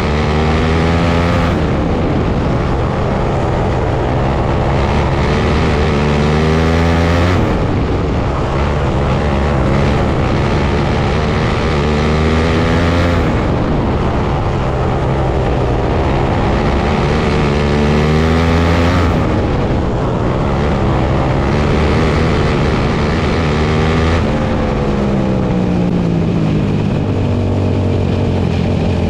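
Outlaw dirt kart engines at race speed. The engine note climbs, then drops off, in a cycle that repeats about every six seconds as the karts lap the oval.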